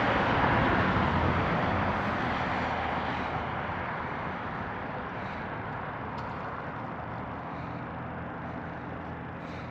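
A passing vehicle: a broad rushing noise, loudest about half a second in, that slowly fades away.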